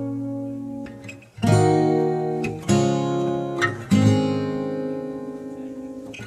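Background music: acoustic guitar strumming chords, each struck and left to ring out, the last one fading slowly.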